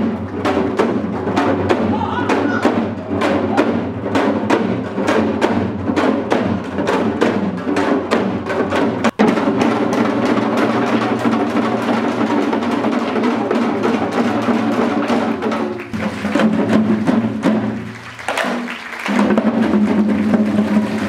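Korean janggu hourglass drums beaten by several dancers in a fast, even rhythm over steady accompanying music. The sound breaks off for an instant about nine seconds in, and then the drumming runs on as a denser wash.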